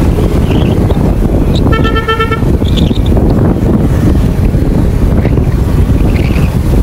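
Wind buffeting the microphone on a moving motorcycle or scooter, a steady loud rush. A vehicle horn sounds once, for under a second, about two seconds in.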